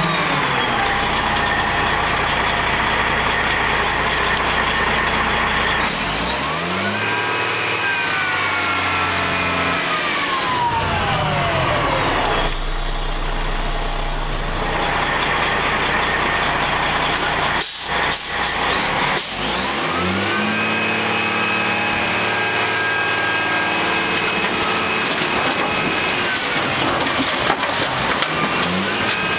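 Older International tri-axle dump truck's diesel engine revved up to run the hydraulic hoist as the dump box is raised. Its pitch rises and falls about a quarter of the way in, and rises again about two-thirds through to hold a steady high speed. A few sharp knocks come just before that second rise.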